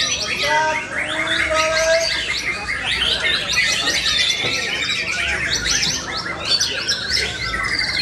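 Many caged songbirds, white-rumped shamas (murai batu) among them, singing at once: a dense, unbroken mix of fast whistles, trills and chatter, with a few clearer lower whistled notes in the first couple of seconds.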